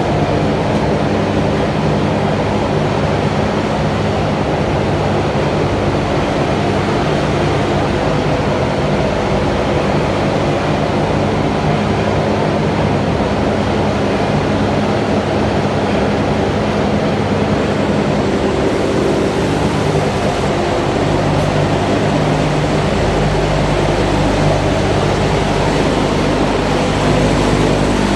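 Steady, loud drone of a running calcium carbonate ball mill plant: the electric motors and grinding and classifying machinery hum with several steady low tones over a broad noise. The low hum grows stronger about three-quarters of the way through.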